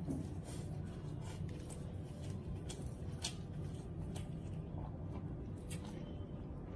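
Faint scattered soft clicks and smacks of fingers picking at fried rice and a fried chicken leg, over a low steady hum.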